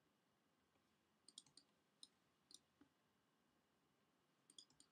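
Near silence broken by faint, scattered clicks of a computer mouse and keyboard: a quick cluster about a second in, a few single clicks, and another cluster near the end.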